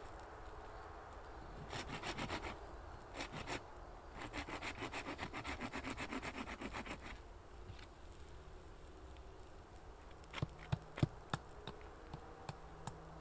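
Hand saw cutting wood: two short runs of strokes, then a steady run of about six quick strokes a second for some three seconds. A few sharp knocks follow near the end.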